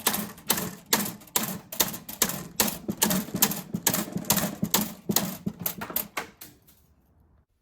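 A fast, irregular run of sharp clicks and taps, about three to four a second, that stops abruptly shortly before the end.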